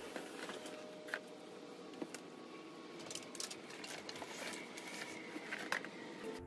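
Scattered light knocks and clicks of bowls and jars being picked up and set down as a table is cleared, over quiet room tone.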